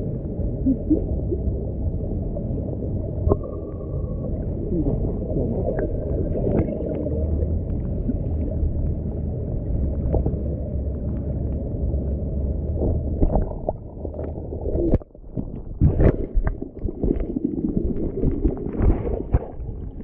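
Flowing stream water recorded underwater at a waterfall pool: a muffled low rush with scattered clicks and knocks. It dips briefly about three-quarters of the way through, then louder knocks follow.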